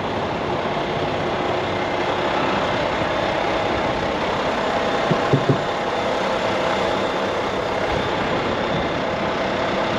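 Steady idle of a Volvo VNL 760 semi tractor's diesel engine, growing a little louder over the first few seconds and then holding even.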